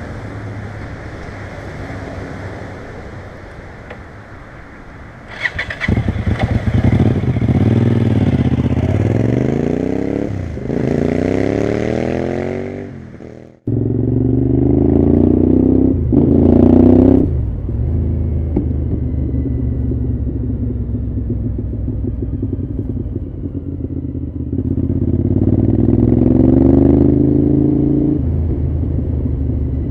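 Cagiva V-Raptor 1000's 996 cc Suzuki V-twin engine running, pitch climbing again and again as it accelerates hard, with steadier stretches between. The sound breaks off abruptly about fourteen seconds in and comes straight back.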